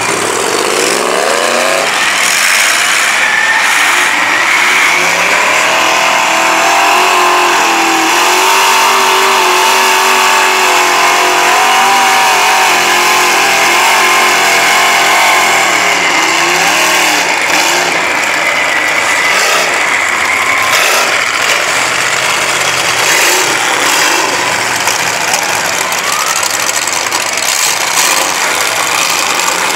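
Lifted mud-bog trucks on oversized tractor tyres driving through a mud pit, engines revving hard with the pitch climbing and falling over and over.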